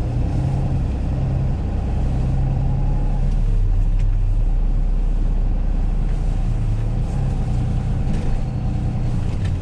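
Peterbilt rollback tow truck driving, heard from inside the cab: a steady engine drone and road noise, the engine note stepping up and down a few times.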